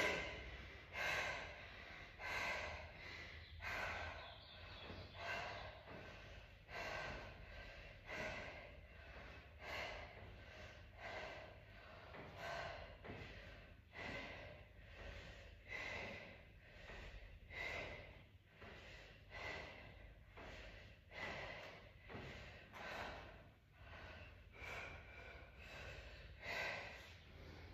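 A person breathing hard and rhythmically from exertion during a fitness-test exercise: faint, noisy breaths, a strong one about every second and a half with softer ones between.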